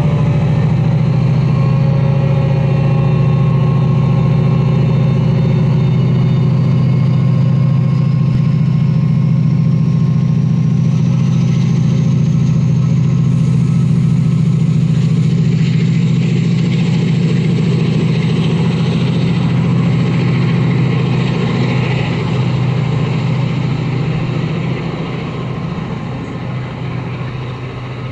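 Class 68 diesel locomotive's Caterpillar V16 engine working hard as the train pulls away from the platform. It makes a loud, steady drone with a whine that rises in pitch through the first half, then fades over the last few seconds as the locomotive draws away.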